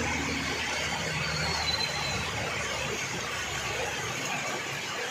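Heavy rain pouring onto a road, a steady hiss. In the first couple of seconds a three-wheeled auto-rickshaw drives past through the wet with its engine running, and a brief faint high squeal sounds about a second and a half in.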